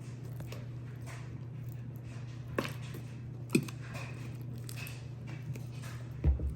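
Scattered light clicks and knocks of small objects being handled, one sharper knock about halfway through and two dull thumps near the end, over a low steady hum.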